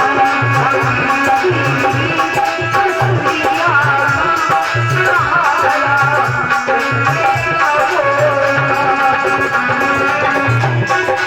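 Indian devotional music: a melody over a hand-drum rhythm in the tabla or dholak style, with the low drum strokes coming in short repeated groups.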